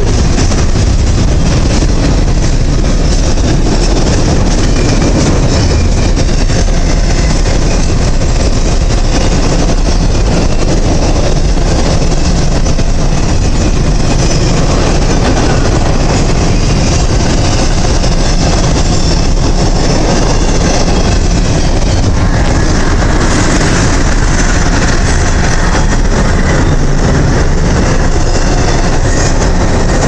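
Freight cars of a CSX mixed freight train, open-top hoppers and gondolas, rolling past close by: steel wheels running on the rails, loud and steady. A higher-pitched noise joins about two-thirds of the way through.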